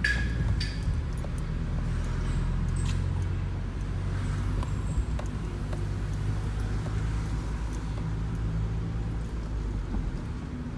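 Car engine and road noise while driving: a steady low hum, with a couple of short, sharp chirps or clicks in the first second.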